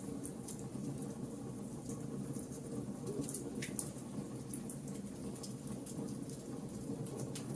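Wood fire in a fireplace crackling: irregular sharp pops and snaps, scattered several to the second, over a low steady rumble of the flames.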